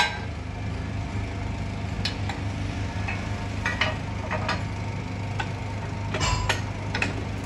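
Steady low hum of workshop machinery, with scattered metal clinks and knocks as a steel wheel rim is handled in a lathe chuck, a small cluster of them near the end.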